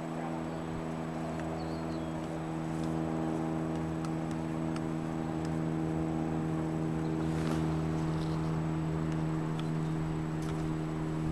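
Steady motor hum holding one even pitch throughout.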